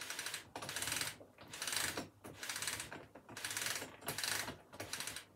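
The roller mechanism of an original Hitachi train destination blind being wound through by hand, making a rapid ratcheting clatter. The clatter comes in repeated strokes of about half a second each, with short breaks between them.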